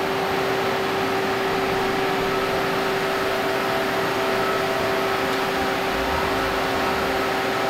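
CNC machining center's coolant washdown cycle: coolant sprays steadily through the enclosure while the rotary C axis spins the pallet, a constant hiss over a steady machine hum.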